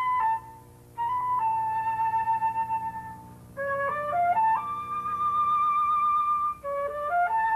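Solo flute playing a slow melody: long held notes with vibrato, broken by quick rising runs of notes.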